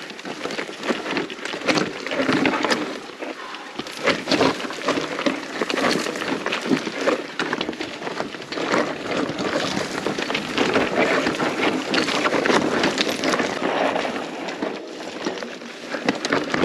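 Wind rushing over the microphone together with a continuous clatter and rattle of riding over a rough, stony mountain track.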